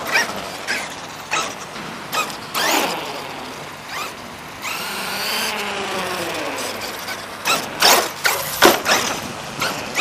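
Traxxas E-Revo 2.0 RC truck driving on concrete. The electric motor whines in short bursts as the throttle is blipped, with tyre scrub. In the middle comes a longer run of whine that falls in pitch as the truck slows.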